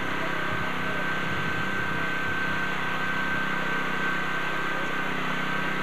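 A small portable petrol engine running steadily at constant speed, a continuous drone with a thin high whine held over it.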